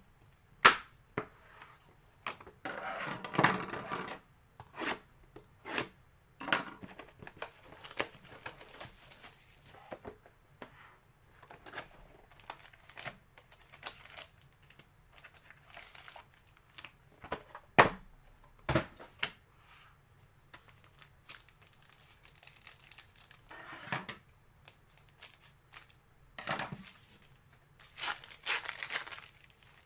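Foil trading card pack wrappers being torn open and crinkled, with a string of sharp clicks and snaps as cards and packaging are handled. Longer rustling tears come about three seconds in and again near the end.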